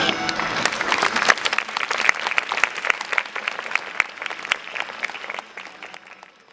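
Audience applauding after a song ends, the clapping dying away over several seconds.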